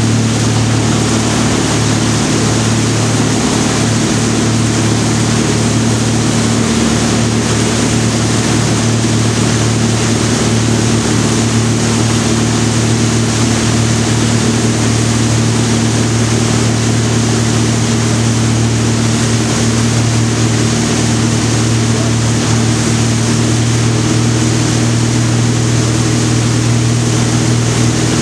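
Tow boat's engine running steadily at speed, with a constant rush of water and wind.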